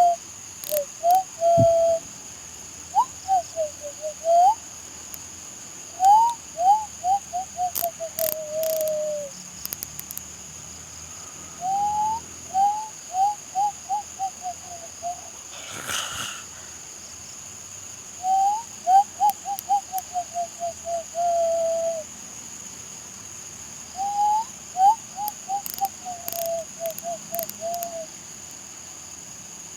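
A man whistling by mouth in six phrases, with pauses between them. Each phrase is a quick upward slide followed by a run of short notes falling in pitch. Crickets chirr steadily underneath.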